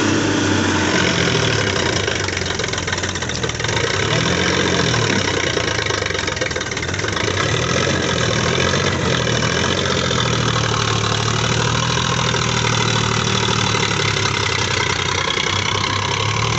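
Diesel tractor engines working under load as a Mahindra Yuva 575 tows a Sonalika DI 42 stuck in deep mud. The engine note rises and falls several times in the first half, then runs steadier.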